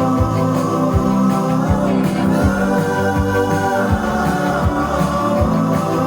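Synth-pop music: held synthesizer chords over a steady drum beat of about two strokes a second.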